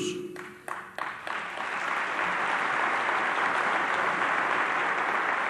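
Audience applauding: a few scattered claps in the first second, then steady applause from a large crowd.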